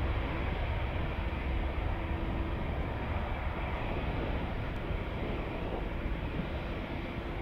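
Jet engines of a Boeing 777-200ER at taxi power as the airliner rolls along a taxiway: a steady, even rumble with a faint hum.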